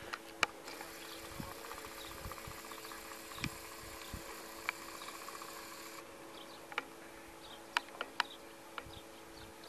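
Quiet outdoor ambience: a steady faint hum, with a fast even ticking from about one second in until about six seconds in, and a few sharp clicks scattered through it.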